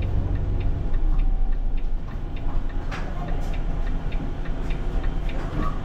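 Volvo B8RLE bus's diesel engine idling with a steady low rumble, under an even ticking of about two clicks a second from the cab, typical of the indicator relay.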